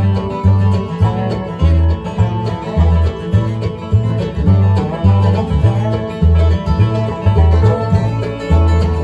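Bluegrass band playing an instrumental break, banjo rolls over guitar, with low bass notes about twice a second.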